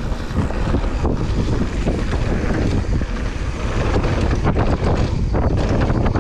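Wind buffeting the camera microphone of a mountain bike rider at speed on a dirt trail, with many small knocks and rattles from the bike over the rough ground.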